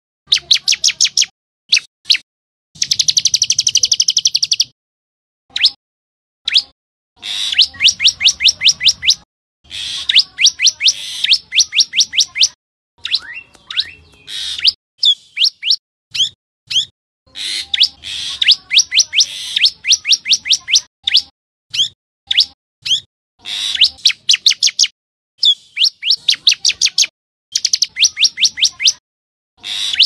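Common tailorbird calling: runs of quick, high, repeated notes, about five or six a second, each run lasting a second or two with short pauses between.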